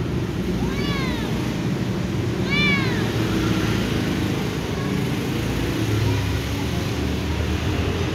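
Little ginger cat meowing twice for attention, each meow rising then falling in pitch, about a second and a half apart, over a steady low rumble.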